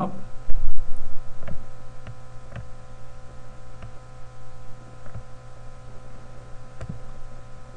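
Steady electrical mains hum with several faint higher steady tones. There is a low bump just under a second in, and faint mouse clicks come at irregular intervals, about one a second, as items are clicked and dragged on screen.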